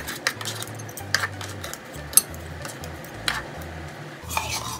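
A metal spoon scraping and tapping on a plastic cutting board and the rim of a salad bowl as pieces of cooked chicken are pushed into the bowl: scattered sharp clicks and scrapes, about one a second.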